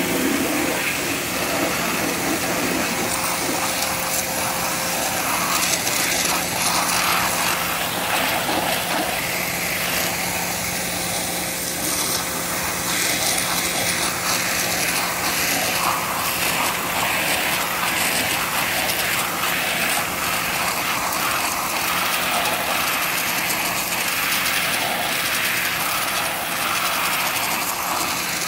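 Pressure washer running steadily: the water jet hisses as it blasts against vinyl siding, over the even hum of the machine's motor and pump.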